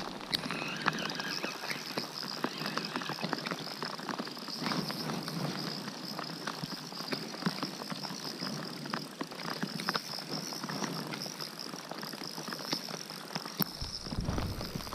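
Rain pattering on the lake and on the plastic kayak hull: a dense, steady patter of small drop ticks.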